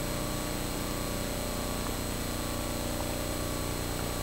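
Steady background hum and hiss with several fixed tones and no events: the recording's noise floor in a pause between speech.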